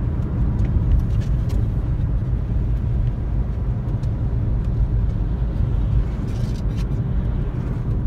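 Inside a moving car: a steady low rumble of engine and tyres on wet road.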